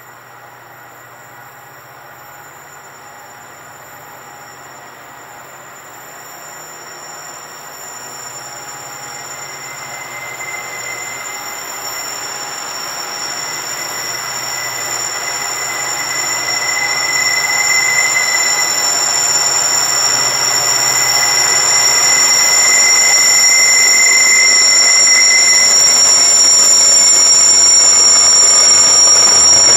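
Diesel-hauled grain train approaching, growing steadily louder, its steel wheels giving a steady high-pitched squeal that strengthens as it nears.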